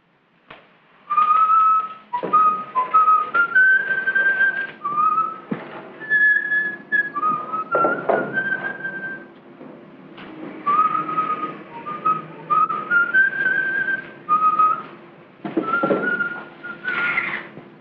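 A man whistling a tune, a single clear line of notes stepping up and down, with a few knocks and clatters of work in between.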